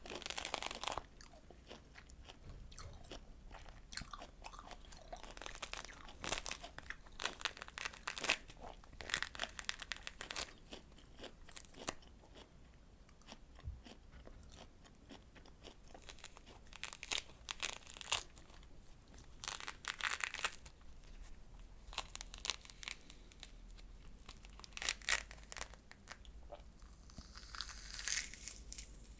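Close-miked eating of juicy citrus fruit: wet bites and chewing of the segments in repeated bouts, with quieter pauses between.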